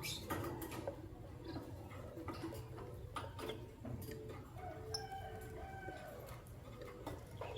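Lovebirds' small clicks and taps throughout, from beaks and feet on the cage. Around the middle comes a faint, held call lasting about a second and a half.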